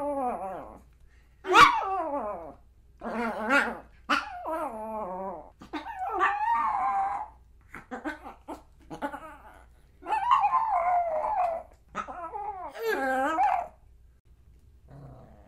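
Pomeranian vocalising in a string of barks and longer, wavering pitched calls, each up to about a second and a half long, with short pauses between them.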